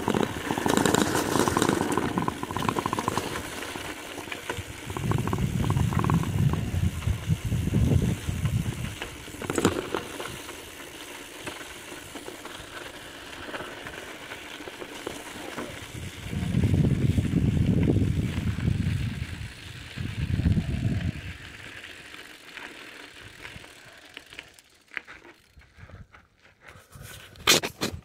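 Bicycle riding along a dirt trail: steady rolling noise with rattles and crackles, and low buffeting that swells up twice. It goes quieter near the end.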